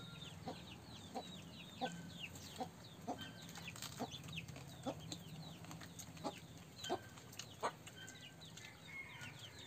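Chickens clucking and cheeping: a rapid, continuous run of short, high, falling chirps, with a few light clicks among them.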